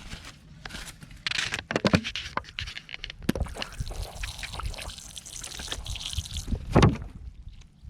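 Water splashing and trickling, with scattered scrapes and knocks.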